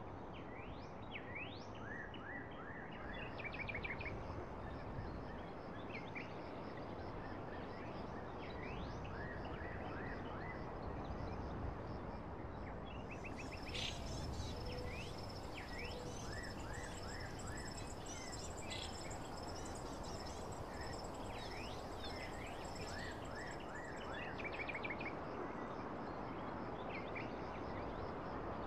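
Birds chirping in short rising and falling calls over a steady, noisy outdoor background. A high, steady buzzing note joins in for about ten seconds midway.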